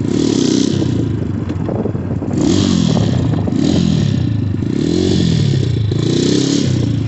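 Xmoto 250cc single-cylinder dirt bike engine revved hard while riding, its pitch climbing and dropping about five times. It is being run hard to blow trapped water out of a clogged muffler.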